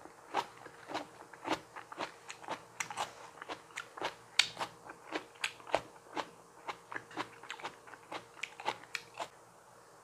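Close-miked chewing of crisp raw vegetables: a steady run of wet crunches, about two to three a second, stopping near the end.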